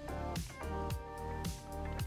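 Background music with a steady drum beat under sustained chords.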